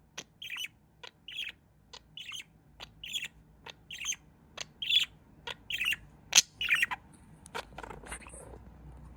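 A pet budgerigar chirping, a run of short high chirps mixed with sharp clicks about twice a second, thinning out near the end.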